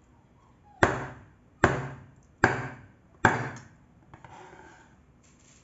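A heavy knife chopping down onto a chopping board, four hard, evenly spaced strikes a little under a second apart, each ringing off briefly, followed by fainter scraping and handling sounds.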